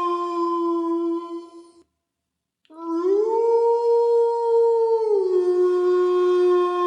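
Canine howling: one long, steady howled note that breaks off about two seconds in. After a short silence a new howl begins, rises to a higher note, holds it, then drops back to the lower note and holds again.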